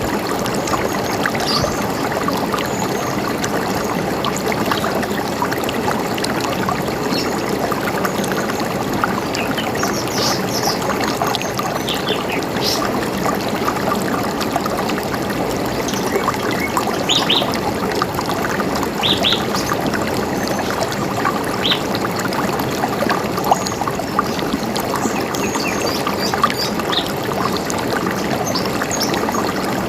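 River water running steadily, with short high bird chirps scattered over it, most of them in the middle of the stretch.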